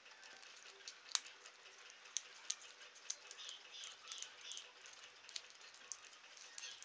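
Faint, scattered small clicks and taps of a jeweller's screwdriver and a bent paperclip tool working on a Silverlit Sky-Knight toy helicopter's plastic body and tiny screws, with one sharper click about a second in.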